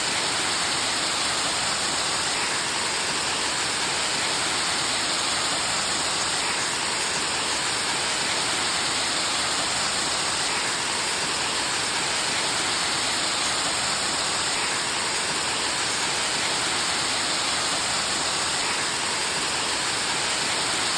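Waterfall rushing steadily, an even hiss with little low rumble.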